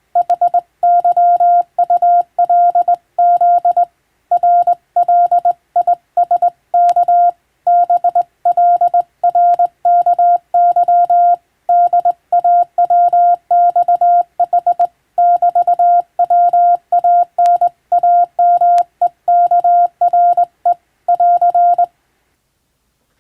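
Morse code (CW) sent as a single steady tone keyed on and off in dots and dashes, a fast continuous run of characters that stops about a second before the end.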